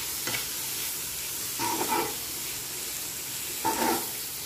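Chicken liver and gizzard pieces frying in oil in a nonstick pan, sizzling steadily. A metal spatula scrapes through them about three times.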